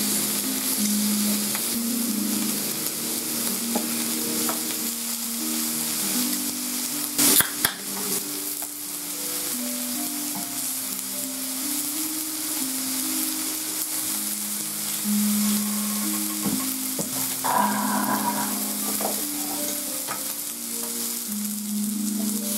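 Slices of wild boar meat sizzling steadily on a hot tabletop grill plate. One sharp knock comes about seven seconds in.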